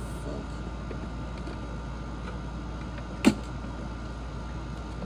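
A single sharp click about three seconds in, over a steady background hum, as a small metal piece is forced back onto a Crosley record player's turntable by hand.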